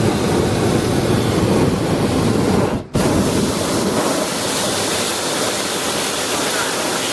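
Hot-air balloon's propane burner firing: a loud, steady roar, broken once for an instant about three seconds in.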